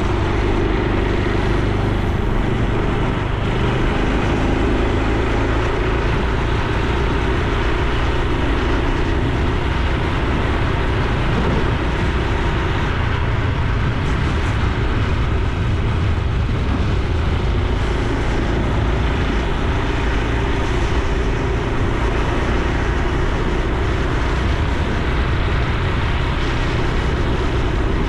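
Honda Super Cub C125's air-cooled single-cylinder four-stroke engine running steadily while the motorcycle is ridden along the road.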